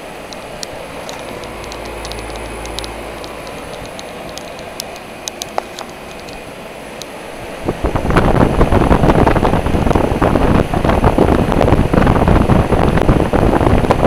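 American Standard central air conditioner condenser unit running, its three-blade fan giving a steady whooshing hum. About eight seconds in it turns into a much louder, gusty rush as the fan's discharge air blows straight onto the microphone held over the top grille.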